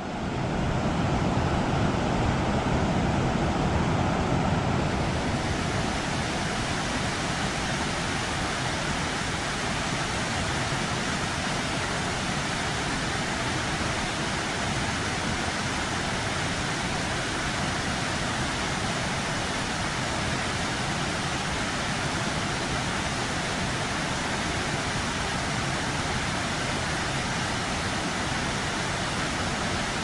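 Steady rushing of the Küreklidere waterfall, an 82-metre cascade falling hard down a rock face, a little louder in the first few seconds and then even.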